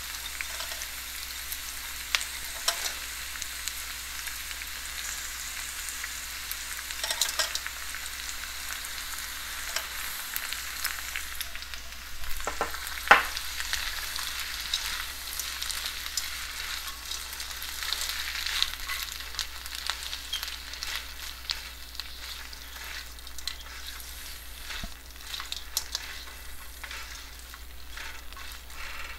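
Frozen okra, just added to onions in hot oil in a wok, frying with a steady sizzle, with the scrapes and taps of a spatula as it is stirred. A sharper knock comes about 13 seconds in.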